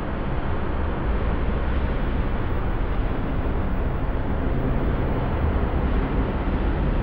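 Dark ambient drone: a steady, dense rumble of noise, strongest in the low end, with faint low tones held inside it and no high frequencies.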